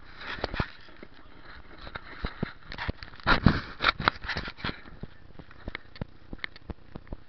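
Handling noise on a body-worn camera: a string of sharp knocks and clicks against its case as mud and the wearer's body rub it, with a louder cluster of scraping in the middle.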